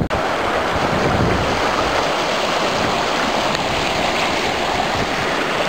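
Shallow mountain river rushing and splashing over rocks close by, a loud steady rush of white water.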